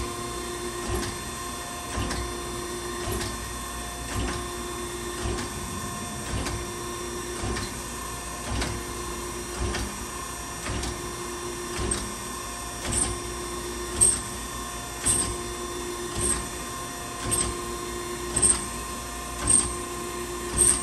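Okamoto 16-32 DX hydraulic surface grinder in automatic cycle: a steady hum from the grinding-wheel spindle and hydraulics, with a surge about once a second as the table traverses back and forth. From about halfway through, each pass also brings a sharp hiss as the wheel cuts the workpiece on its downfeed.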